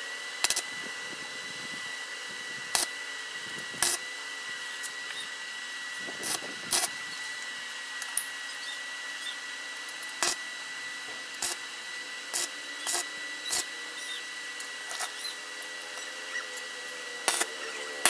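Stick welder tack-welding a steel bracket onto a motor stator: about a dozen short, sharp bursts as the electrode strikes and arcs, scattered irregularly. A steady high whine underneath.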